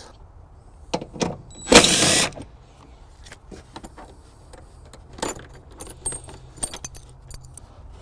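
Small clicks and light metallic jingling from hand tools and a metal cargo hook being handled on trim panels, with one louder half-second burst of noise just before two seconds in.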